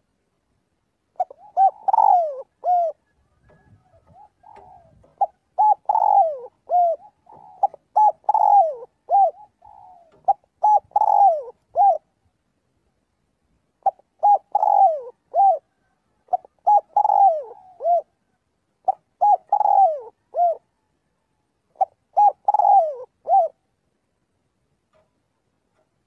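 Spotted dove cooing: phrase after phrase of low, rounded coos with short pauses between them, falling silent a couple of seconds before the end.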